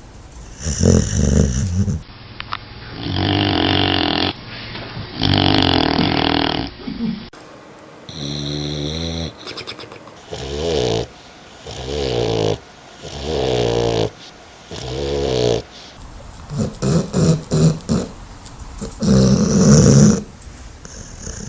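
Dog snoring, one rasping snore with each breath, about every one and a half to two seconds. Late on, the breaths come as a quicker run of short snorts, about two a second.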